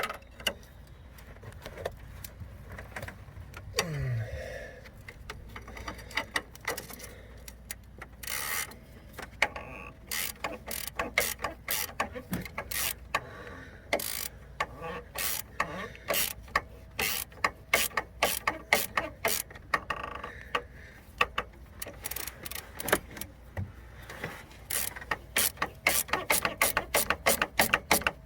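Hand ratchet clicking in repeated quick bursts as it snugs down the nut on a front shock absorber's mounting stud, the mechanic testing by feel how tight the nut is. The bursts come thicker near the end.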